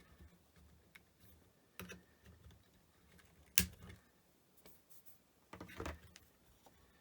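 Scattered light clicks and taps of small tools and electronic parts being handled at a workbench, with one sharp click about three and a half seconds in.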